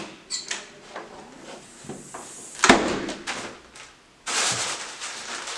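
Door and handling sounds in a hallway: light clicks and knocks, then a door thudding shut about two and a half seconds in. Near the end a steady rushing noise starts suddenly.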